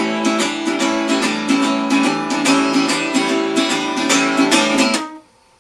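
Guitar strumming a blues accompaniment in a quick, steady rhythm, stopping abruptly near the end.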